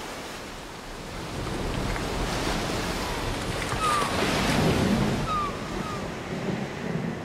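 Sea surf breaking against a rocky shore, with wind. The wash swells to its loudest about two-thirds of the way through.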